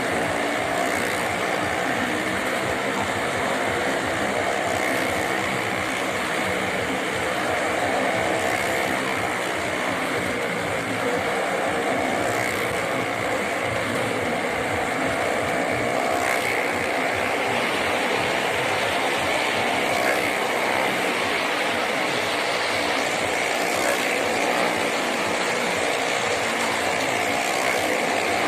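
Car and motorcycle engines running together at a steady pitch as the vehicles circle the vertical wooden wall of a well-of-death drum.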